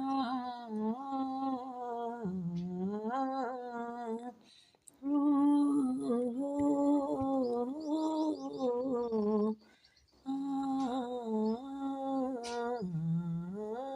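A voice humming the aarti melody without words or accompaniment, in three long phrases with short breaks between them.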